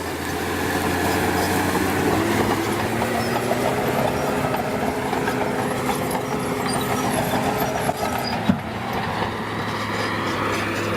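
Diesel engine of a heavy earthmoving machine running steadily at work, with a single sharp knock about eight and a half seconds in.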